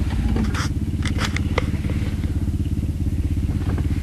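Pickup truck engine idling steadily, a low pulsing rumble heard close up from the vehicle, with a few light clicks and rattles.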